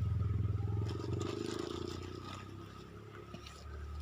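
A low, steady motor hum, like a small engine running. It fades away about a second in and comes back near the end, with a few light scratchy ticks in between.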